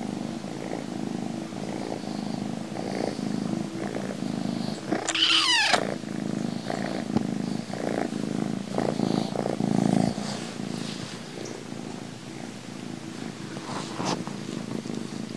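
Kitten purring steadily, with one short high squeak sliding down in pitch about five seconds in.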